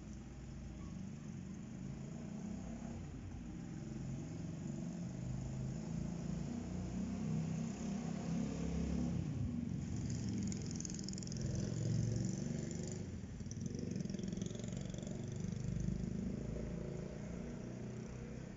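Low rumble of a passing vehicle out of sight, swelling to a peak in the middle and easing off near the end, with a brief higher hiss about ten seconds in.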